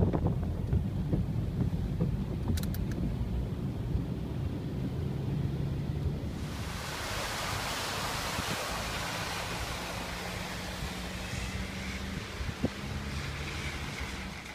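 Low steady hum of a car engine heard from inside the cabin. About six seconds in, a broad hiss of spray sets in as an SUV's tyres drive through floodwater on the wet road, slowly fading toward the end.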